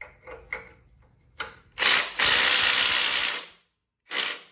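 Impact wrench hammering on the heat-shield bolts of a K24 exhaust manifold: a few light clicks, then a long burst of about a second and a half starting near the two-second mark, and a short burst near the end.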